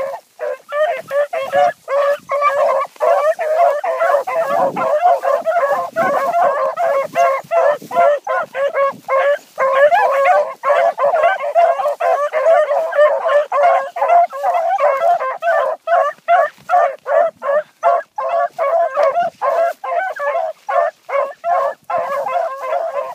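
A pack of four hounds giving tongue as they run a scent line: a continuous chorus of overlapping baying.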